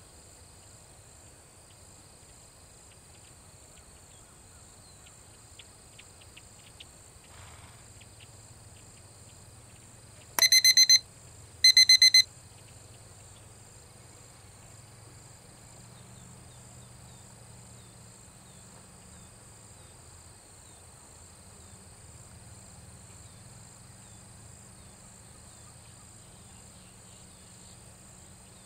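A steady, high-pitched chorus of insects, interrupted about ten seconds in by two loud electronic beeps, each about half a second long and a little over a second apart.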